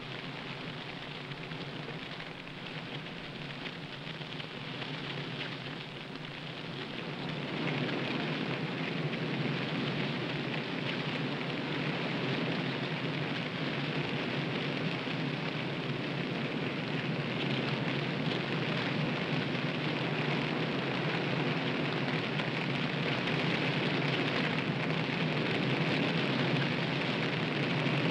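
A backfire burning uphill through conifer forest: the steady crackling rush of flames in the trees, which grows louder about seven seconds in and then holds steady.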